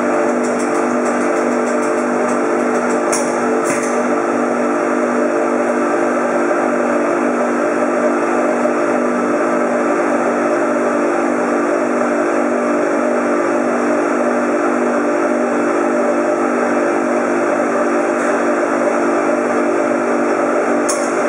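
Steady, loud droning hum of workroom machinery, with two short hissing bursts about three seconds in.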